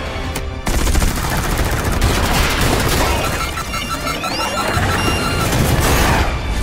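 Fighter jet's cannon firing a long, rapid burst, starting about half a second in, with film score underneath.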